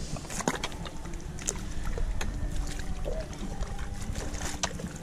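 Footsteps squelching and splashing through wet mud and shallow puddles, a quick run of irregular wet slaps and clicks over a low rumble of wind on the microphone.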